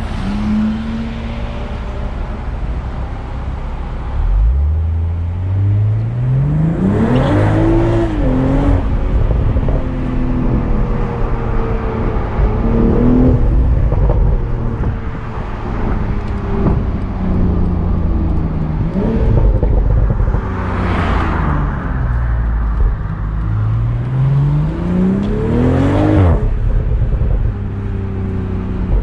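BMW Z4 M40i's turbocharged 3.0-litre inline-six under hard acceleration. The engine note climbs steeply about four seconds in and again near the end, each pull cutting off sharply at a gearshift. In between, the pitch sinks slowly as the car eases off.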